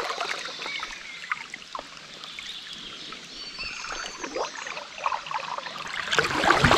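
River water running in a faint steady wash, with small clicks and thin high chirps over it. A louder rush of noise rises near the end.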